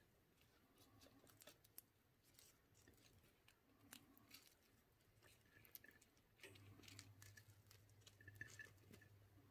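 Near silence with faint, scattered soft crackles and taps from a thin spring-roll wrapper being folded and rolled by hand on a plate. A faint low hum comes in about six and a half seconds in.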